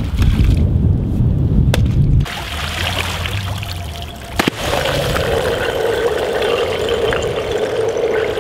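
Axe chopping thin shore ice in shallow water: sharp cracks of the blade on the ice with splashing and sloshing. About two seconds in, the sound cuts to quieter sloshing as ice sheets are broken and moved by hand, with one more crack, and background music comes in about halfway.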